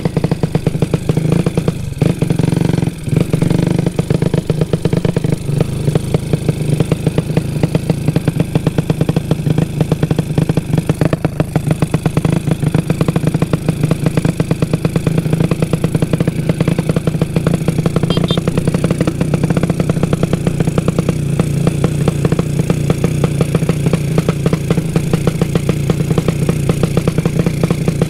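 Motorcycle engine, modified to sound like a helicopter, running at a steady pace with an even, rapid pulsing beat from the exhaust.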